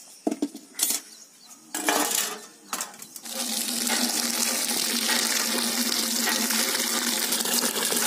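A few metal clinks and knocks, then from about three seconds in a steady stream of water splashing from a pump spout into an aluminium pot full of chopped pumpkin leaves, with a low ringing hum from the pot as it fills.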